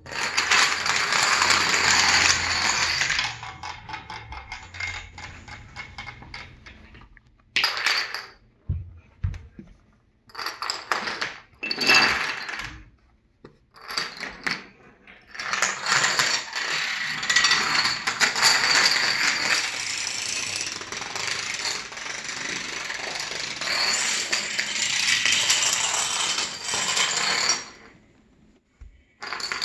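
A long chain of dominoes toppling on a tile floor: a rapid, dense clatter of small falling tiles. It runs loud for about three seconds, thins out, comes in short bursts through the middle, then runs steadily again for about twelve seconds before stopping near the end, with one more burst at the very end.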